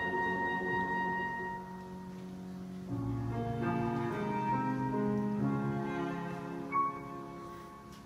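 Live choral concert music: a held chord from the chorus dies away, then an instrumental passage with slowly changing chords comes in about three seconds in and fades toward the end. One brief sharp sound comes shortly before the end.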